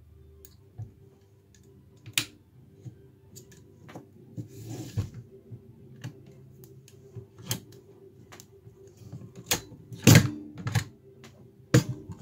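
Metal clicks and knocks of a SIG Sauer 516 Patrol rifle being taken apart: the takedown pins pushed out and the lower receiver separated from the upper and set down. The clicks are scattered and irregular, with the loudest knocks about ten seconds in and again near the end.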